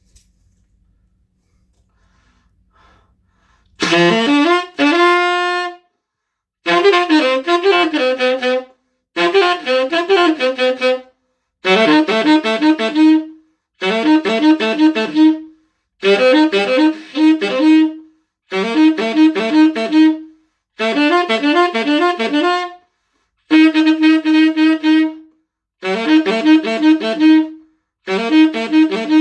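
Cannonball Big Bell Stone Series Hotspur tenor saxophone with a JodyJazz DV mouthpiece, played solo. It comes in about four seconds in and repeats a melodic phrase of about two seconds each time, with short breaks for breath between the phrases.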